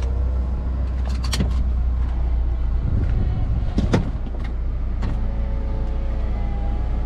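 Car running slowly with a steady low rumble, heard from inside the cabin with the window down. A few sharp knocks come about a second in and again near the middle.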